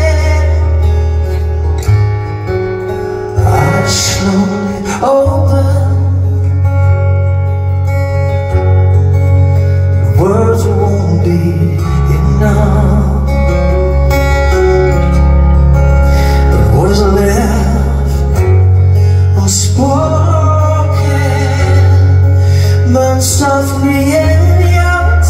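A male singer's amplified live vocal over a strummed acoustic guitar, with long held sung notes over the guitar's steady low notes.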